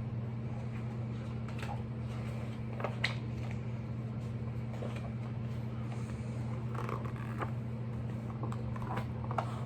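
A steady low hum with faint, scattered clicks and creaks over it.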